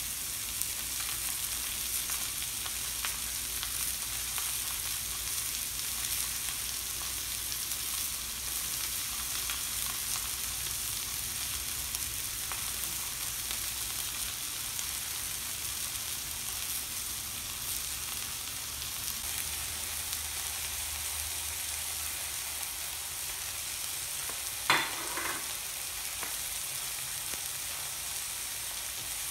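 Skirt steak and sliced peppers and red onion sizzling steadily on a hot stainless-steel teppanyaki griddle plate, with fine crackling throughout. Near the end, one sharp clink is the loudest sound.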